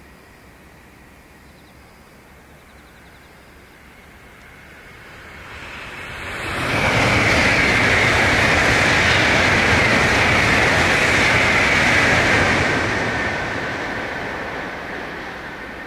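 A Tokaido Shinkansen high-speed train passing at speed. Its rushing noise swells quickly about six seconds in, holds loud for about five seconds, then fades away gradually.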